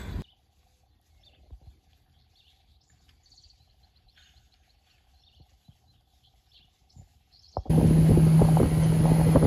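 Faint birds chirping in near-quiet pasture air. About seven and a half seconds in, a loud, steady rushing noise with a low hum cuts in suddenly: a moving vehicle with wind over the microphone.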